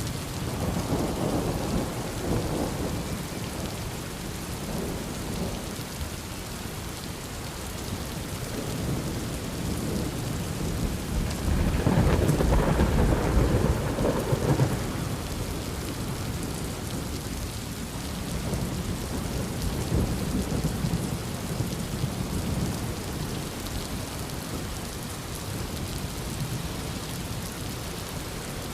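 Heavy rain falling steadily through a thunderstorm, with rolling thunder: a rumble just after the start, a louder, longer roll of thunder about twelve seconds in that lasts several seconds, and fainter rumbles later on.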